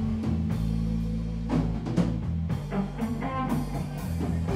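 A live rock band playing an instrumental passage: electric guitars and bass guitar over a drum kit, with a steady low bass line and regular drum hits.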